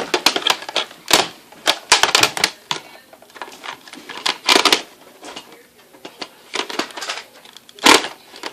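Irregular plastic clicks and knocks of a toy scope being fitted onto a Nerf blaster, with a louder knock near the end.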